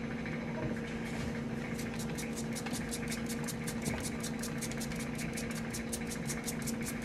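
Steady machine hum with a fast, even pulsing hiss above it, about five pulses a second, starting about a second and a half in.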